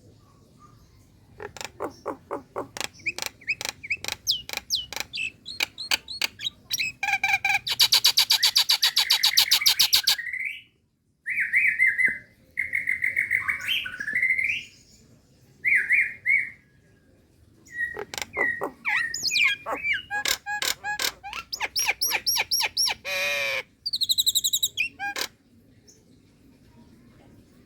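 Female Nias hill myna calling to a male: bouts of fast, harsh clicking notes that speed into a dense rattle, broken by clear whistles, with short pauses between the bouts.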